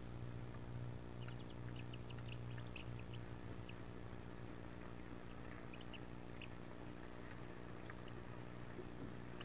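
Wood duck ducklings peeping faintly, with short high peeps in a cluster from about one to four seconds in and again around six seconds, over a steady low hum.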